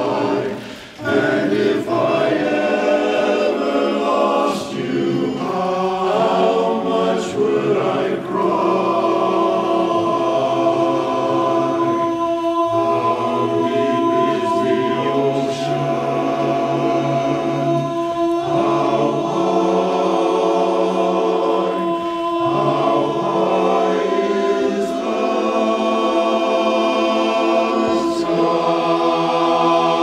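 Men's barbershop chorus singing a cappella in close four-part harmony, with a brief break about a second in and then long-held chords.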